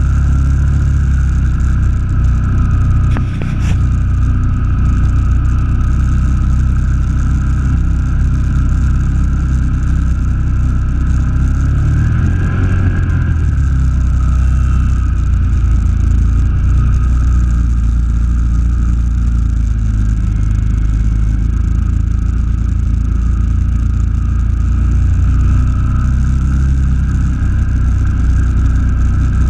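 Quad bike engine running steadily under load, heard close up from the machine's own front rack as it drives through floodwater. A single sharp knock comes about three seconds in, and the engine note briefly shifts around the middle.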